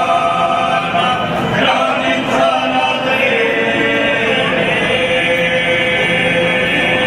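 Unaccompanied traditional folk group singing by the ensemble's singers, long held notes sung together with a few sliding changes of pitch.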